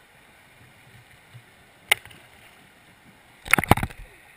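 Muffled river water heard through a half-submerged camera's waterproof housing, with one sharp click about two seconds in and then a loud cluster of knocks and bumps on the housing near the end.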